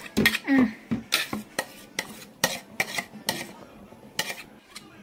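A metal spoon scraping and knocking against a stainless steel mixer-grinder jar as thick mayonnaise is emptied into a bowl: irregular clinks and scrapes, several a second.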